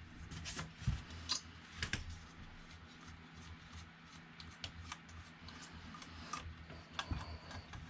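Hands handling parts of a 3D printer: scattered small clicks, taps and rubbing, with a couple of sharper knocks about one and two seconds in and another click near the end.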